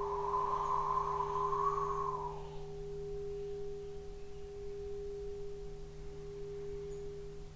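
Crystal alchemy singing bowl sounding one steady, sustained tone with fainter overtones, played by a wand circling its rim. The rubbing of the wand on the rim is heard as a hiss over the tone for about the first two seconds, then fades, and the bowl rings on alone.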